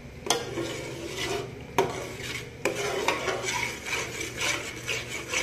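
Metal ladle stirring and scraping thick masala paste around an aluminium pot, with a few sharp clinks of the ladle against the pot; the masala is being fried until the oil separates.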